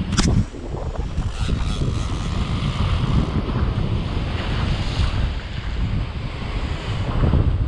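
Rough surf breaking and washing over rocks, with heavy wind buffeting the microphone. A brief sharp hit sounds right at the start, and the hiss of the wash swells around the middle.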